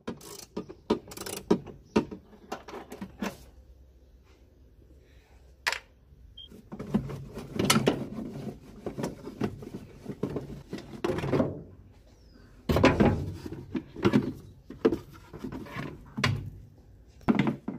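Irregular clicks, knocks and rattles of tools and parts being handled: sparse at first, busier from about seven seconds in, with the loudest clatter about thirteen seconds in.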